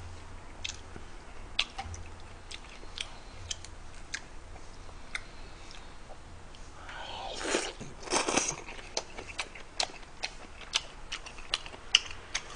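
Close-up eating sounds: chewing with scattered small clicks and smacks, and about seven seconds in a louder slurp of noodles lasting about a second and a half.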